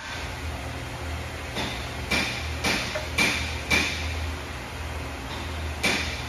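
Light metallic knocks and clinks from a spiral bevel gear being handled and seated on its shaft in a cast gearbox housing. There are about five knocks roughly half a second apart, a pause, then more near the end, over a steady low hum.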